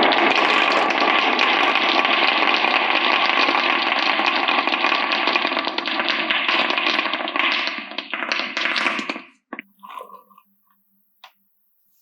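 Many marbles rolling and clattering down a wooden HABA marble run, a dense continuous rattle of small clicks. It thins out and stops about nine seconds in, followed by a few separate clicks.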